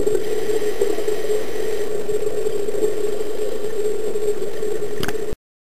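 Steady engine-like drone heard through water, with a strong hum just under 500 Hz. It cuts off abruptly about five seconds in.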